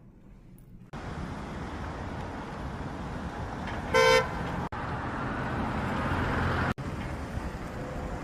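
Street traffic noise with a single short car horn beep about four seconds in.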